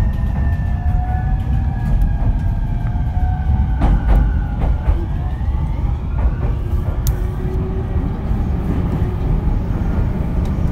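Interior running noise of a JR East E231-series EMU motor car, with the whine of its original, unrenewed VVVF traction inverter: several thin tones glide, one falling while others rise, over a heavy low rumble of wheels on rail. A few sharp clicks from the track come through, one loud one about seven seconds in.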